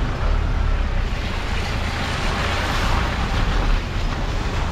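Off-road vehicle driving slowly over a muddy dirt track: a steady low rumble of engine and tyres, mixed with wind buffeting the outside-mounted camera's microphone.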